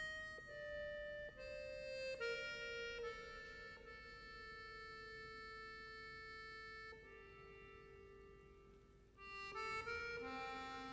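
Background instrumental music: a slow melody of held notes on a reed instrument like a harmonica or accordion. It grows fainter about two thirds of the way through, then swells again near the end.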